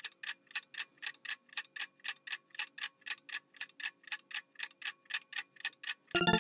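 Ticking-clock countdown sound effect: steady, regular ticks about four a second. Near the end a bright run of chiming notes sets in.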